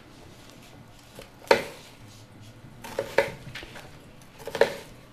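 Kitchen knife dicing a red onion on a wooden cutting board: scattered knocks of the blade against the board, the loudest about a second and a half in, two more around three seconds and a quick cluster near the end.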